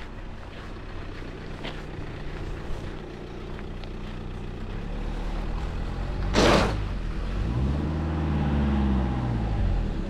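A motor vehicle's engine running close by and getting louder, with a short loud hiss about six and a half seconds in, then the engine note rising and falling in pitch.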